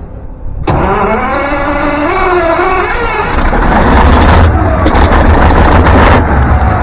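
Caterpillar 3412 V12 diesel engine starting after years unused: the starter cranks it with a rising whine from just under a second in, then it fires about three seconds in and settles into a loud, steady, deep running.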